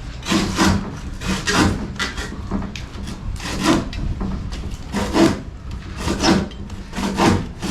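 Hand saw cutting through timber in repeated, uneven strokes.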